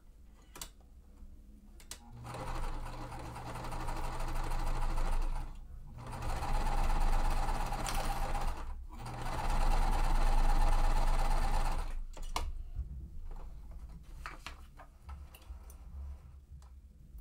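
Sewing machine stitching a quilt-block seam, running in three spurts of a few seconds each with short stops between, then a few light clicks.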